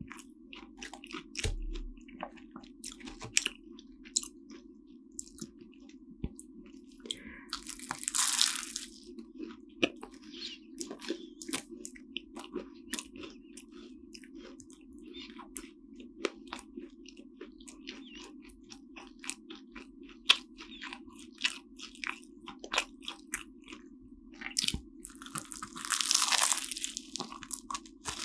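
Close-up chewing and crunching of a flaky almond-topped croissant, with many small crisp crackles. Two longer, louder crunches come about eight seconds in and near the end. A steady low hum runs underneath.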